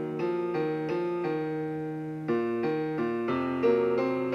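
Piano accompaniment playing a short solo interlude without the voice: a slow series of struck chords, each fading as the next comes in.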